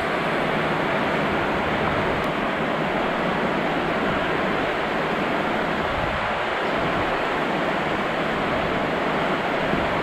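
A steady, even rushing noise that holds at one level throughout.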